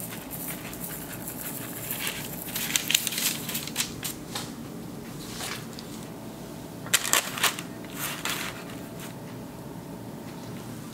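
Baking paper crinkling as it is handled and laid over pastry dough in a baking tin, in two clusters about two seconds in and about seven seconds in, over a faint steady hum.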